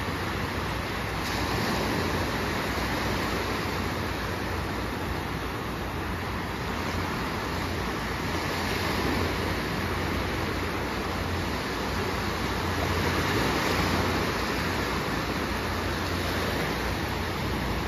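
Small sea waves breaking and washing up a sandy shore: a steady rush that swells and eases every few seconds.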